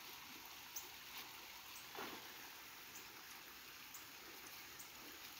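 Near silence: faint outdoor background hiss with a few light ticks.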